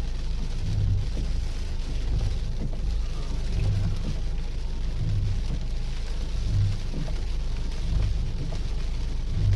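Steady low rumble of storm wind and rain on the microphone, with soft low thuds repeating about every second and a half.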